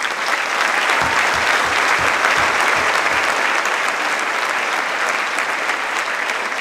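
Audience applauding steadily, a loud, dense clapping that starts right away and carries on throughout.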